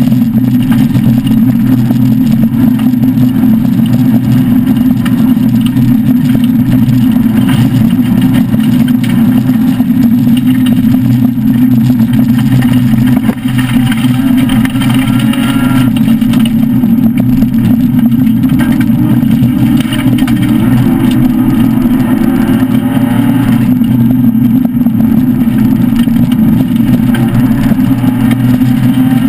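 Loud engine and drivetrain noise inside the cabin of a Citroën SM rally car with a Maserati V6, driven hard on a dirt special stage. The engine note rises with the revs several times, with a brief dip about thirteen seconds in.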